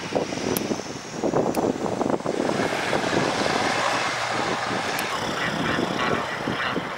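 Jet engines of a taxiing Boeing 787-9 airliner running at low taxi power, a steady rushing noise with a faint high whine in the first few seconds.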